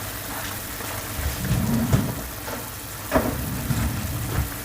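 Pot of chicken stock boiling hard over high heat, a steady bubbling hiss, with a couple of dull knocks about halfway through.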